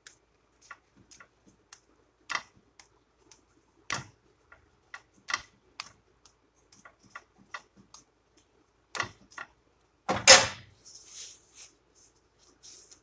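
Irregular small clicks and pops from a quesadilla cooking in a flat pan under a metal spatula, with one louder clatter of about half a second just after ten seconds in.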